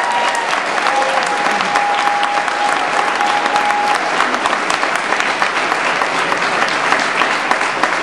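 Crowd applauding steadily: many hands clapping at once, with one long held note rising above the clapping in the first half.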